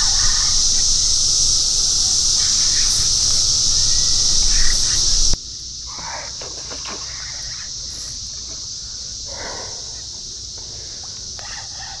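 Brood X periodical cicadas chorusing, a continuous steady high-pitched drone that drops sharply in loudness about five seconds in.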